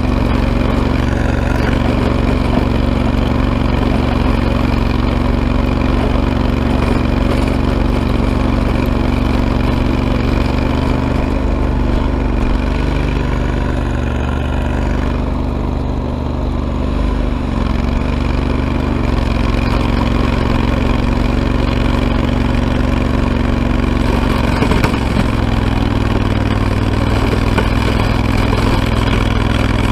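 Ariens Grand Sierra riding tractor's engine running steadily while the tractor plows snow with a front blade; its pitch shifts slightly for a few seconds midway.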